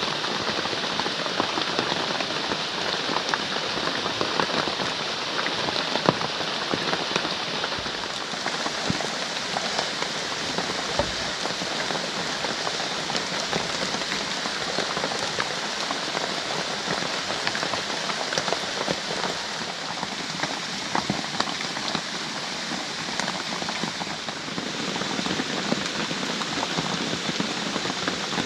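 Steady heavy rain falling, a dense patter of drops.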